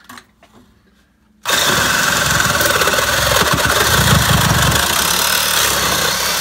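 Cordless reciprocating saw starting up about a second and a half in and cutting steadily through a metal drain pipe.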